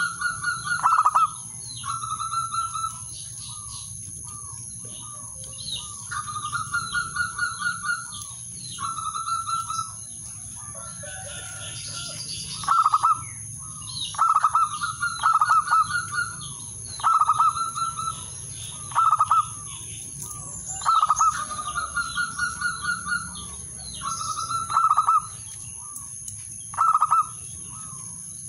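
Male zebra dove cooing its territorial call to a rival: about a dozen short phrases of rapid, bubbling staccato coos, each about a second long, some drawn out into a longer trill, repeated every couple of seconds.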